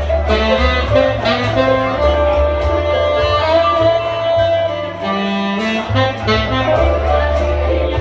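Tenor saxophone playing a melody live over a backing track with a bass line and a steady beat.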